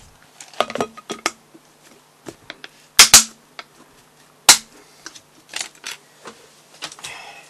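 Plastic bag crinkling, then a plastic storage box lid pressed shut: a loud pair of sharp snapping clicks about three seconds in and another a second and a half later, with lighter knocks of handling after.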